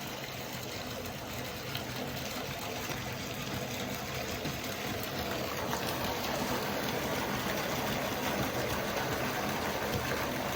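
Steady rush of flowing water, growing slightly louder about halfway through.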